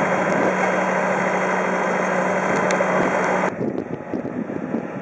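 Bobcat skid-steer loader's engine running steadily close by with a held low hum, cut off abruptly about three and a half seconds in by wind buffeting the microphone.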